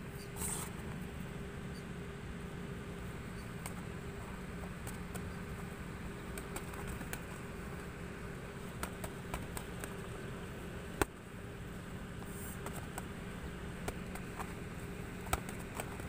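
Boxing gloves landing light punches during sparring: scattered soft taps and clicks over a steady low hum, with one sharper smack about eleven seconds in.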